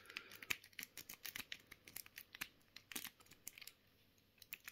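Faint handling noises: scattered small clicks and taps of lock picks and padlocks being handled, with light rustling of plastic packaging.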